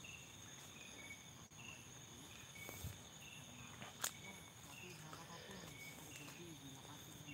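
Night-time chorus of crickets trilling steadily, with a short two-note chirp repeating about once a second. A single sharp click comes about four seconds in.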